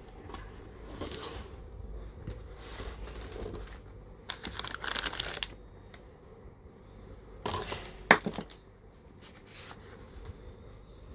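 Plastic bag and paper packaging crinkling and rustling inside a cardboard box as it is unpacked by hand, in several short bursts, the longest about four to five seconds in, with a sharp tap about eight seconds in.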